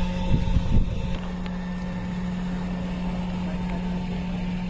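Helicopter running with a steady, even drone, a few knocks in the first second.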